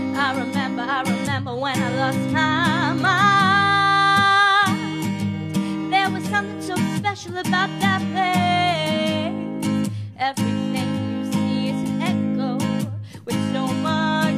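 Song performance: a woman singing a slow melody with wavering, long held notes over instrumental accompaniment.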